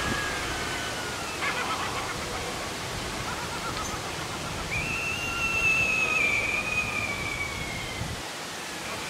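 Spooky Halloween sound effects from the haunted-house decoration's small built-in speaker: a steady hiss, a brief wavering sound about one and a half seconds in, then a long high whistling tone that starts about five seconds in and slowly falls in pitch.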